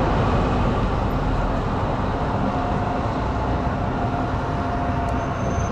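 Zürich city tram running past, a steady rumble and rail noise with a faint steady whine that comes in about halfway through.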